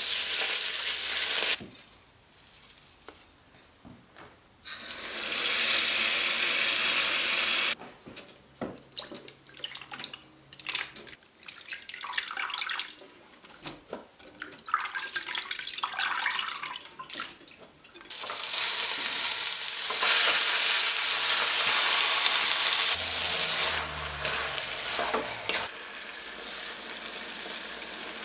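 Fried onions and tomato paste sizzling as they are stirred in a wok. Then come stretches of water: splashing as hands wash raw mutton chunks in a bowl of water, steady runs of water, and water poured into a pot of browned meat near the end.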